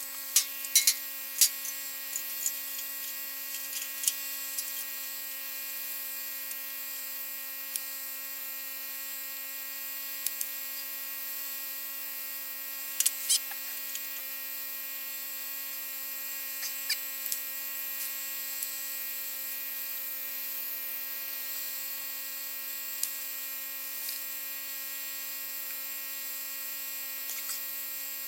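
A steady, even-pitched hum with a high hiss, with light clicks and taps now and then, most of them in the first two seconds and about thirteen seconds in.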